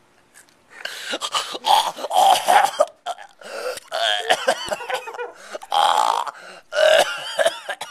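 A man's voice making loud, wordless choking cries in about four long stretches, the pitch wavering, as he acts out being killed.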